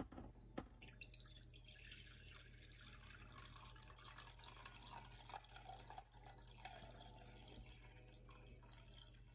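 Water pouring faintly and steadily from a glass electric kettle into a glass measuring jug, after a light knock at the very start.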